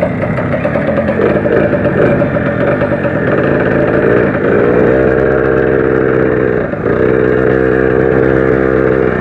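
Zanella 70cc two-stroke moped engine running. Its speed wanders for the first few seconds, then holds steady at a higher pitch, with a brief dip about seven seconds in.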